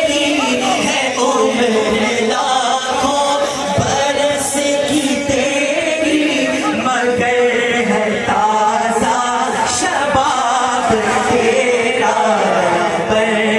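A man sings a naat, a devotional poem praising the Prophet, through a microphone, in a continuous melodic chant.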